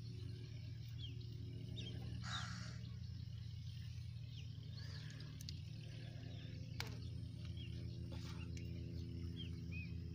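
Birds chirping now and then over a steady low hum, with a brief rustle early on and a couple of sharp clicks in the second half.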